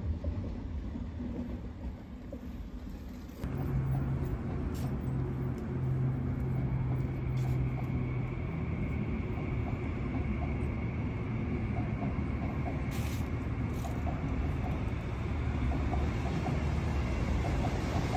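Frecciarossa high-speed electric train running over a masonry railway viaduct: a steady rumble of wheels on rail. About three seconds in the sound gets louder, and a high steady whine comes in soon after and holds.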